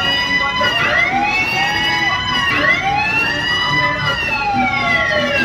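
Siren-style sound effect played over a DJ truck's sound system: swooping tones that rise and fall about every one and a half seconds, the last one falling slowly for about two and a half seconds, with the bass cut out.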